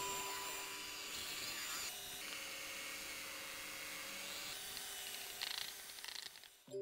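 Philips electric stand mixer running steadily, its beaters mixing cake batter while flour is added; the sound fades away just before the end.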